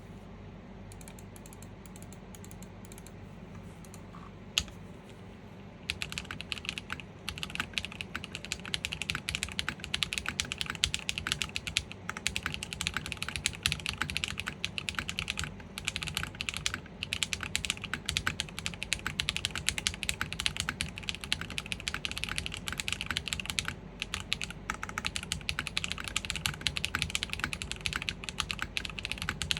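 Typing on a gasket-mounted IRON165 custom mechanical keyboard with a polycarbonate plate, factory-lubed Sarokeys BCP switches and GMK Modo2 keycaps. A few isolated key clicks, one sharp, then steady rapid typing from about six seconds in.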